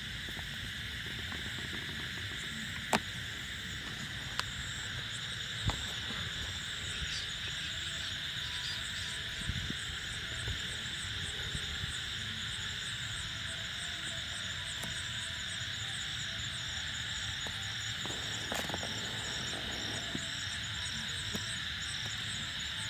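Night chorus of crickets and other insects: a steady high hiss with a fast, evenly pulsing trill above it. A few sharp clicks come in the first six seconds.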